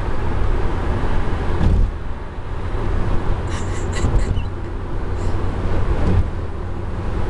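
Cabin noise of a car cruising at highway speed: a steady low rumble of tyres and engine, with a few brief clicks about halfway through.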